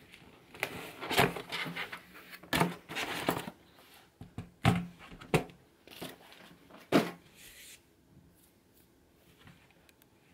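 Keyboards typed on hard and handled on a desk: clattering keystrokes and several sharp knocks as a keyboard and a white Logitech wireless keyboard are picked up and set down. The knocks fall over the first seven seconds, then only faint small handling sounds.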